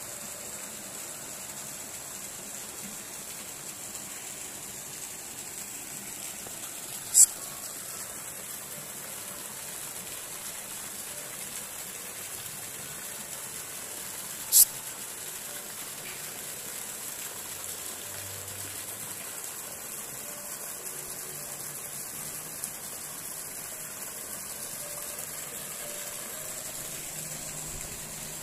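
Steady rushing and splashing of water from a pond fountain jet. Two brief, sharp high-pitched clicks stand out, about seven seconds in and again about halfway through.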